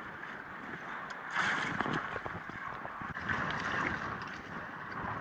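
Sea water sloshing and splashing around a boat on open sea, with wind on the microphone; a louder rush of water comes about a second and a half in.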